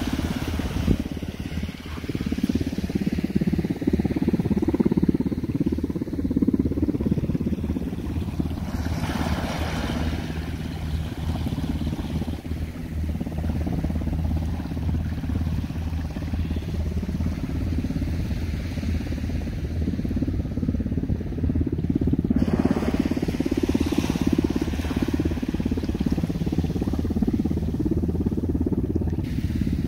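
Wind buffeting the microphone, giving a steady fluttering low rumble. A few brief washes of higher hiss come and go, about nine seconds in and again near twenty-four seconds.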